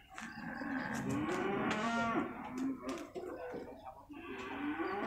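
Water buffalo calling: one long, drawn-out moo that rises and falls in pitch over about three seconds, then a second call beginning about four seconds in.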